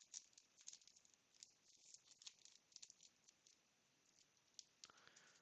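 Near silence with faint, scattered soft ticks and rustles of trading cards being handled and set down.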